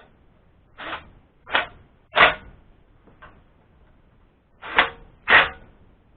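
Short clatters of metal parts and tools being handled during engine assembly: three quick ones about a second in, a faint one in the middle, and two more near the end.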